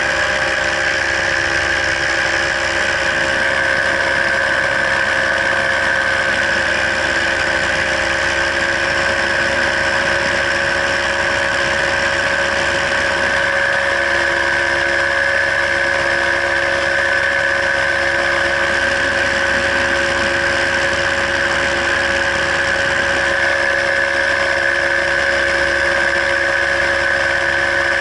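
Paramotor engine and propeller running at a steady throttle in flight, a constant drone whose pitch does not change.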